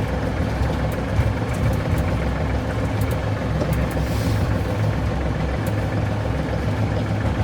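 Massey Ferguson 4710 tractor's diesel engine running steadily, heard from inside the cab as it pushes snow with the loader bucket.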